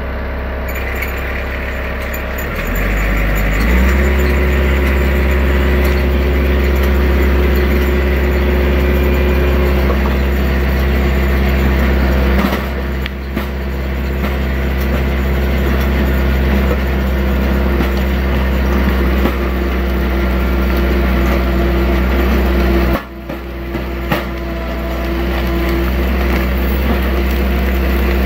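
Branson 4520R tractor's diesel engine running, throttled up about three seconds in and then holding a steady higher speed. Near the end it drops off briefly, then picks up again.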